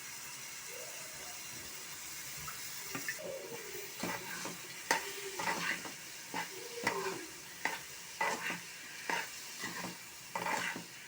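Soaked whole masoor dal being stirred into a sizzling, fried onion-tomato masala in a pot. A steady sizzle runs throughout, and from about three to four seconds in, a spoon scrapes and knocks against the pot about once a second.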